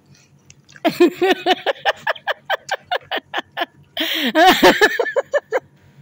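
A woman's voice chanting a quick run of short repeated syllables, about four or five a second, in playful baby talk, followed near the end by a louder breathy vocal sound.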